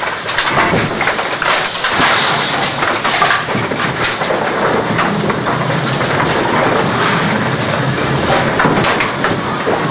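A 1961 Double Diamond 5-pin bowling pinsetter running: a loud, steady mechanical clatter of its chains and moving parts, with many sharp clicks and knocks.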